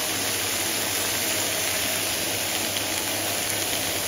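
Crayfish in a wok simmering in freshly added beer, a steady sizzling and bubbling hiss with a low hum underneath.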